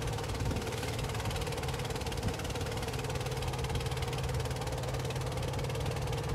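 Boat engine running steadily at an even speed: a low drone with a fast regular pulse that stays level throughout.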